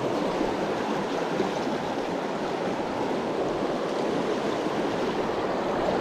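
Fast, shallow river riffle rushing steadily over stones.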